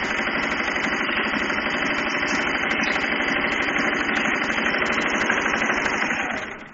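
Singer 2250 electric sewing machine running steadily at speed, its needle stitching a decorative pattern through cloth, then stopping shortly before the end.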